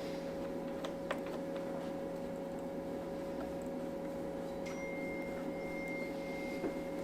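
A few light metallic clicks as cam locking tools are fitted to a Ducati 848 engine's cam pulleys, over a steady low hum. A faint high tone comes in a little past halfway and stops a second and a half later.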